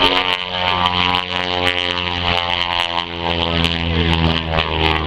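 Beechcraft Model 18 twin radial engines and propellers droning steadily as the airplane makes a low pass.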